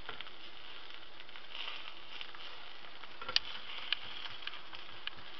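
Egg frying in a pan: a steady sizzle with scattered crackling pops, the loudest a little past halfway.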